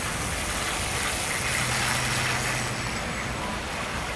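Steady outdoor background noise, with a low engine-like hum for about a second and a half in the middle.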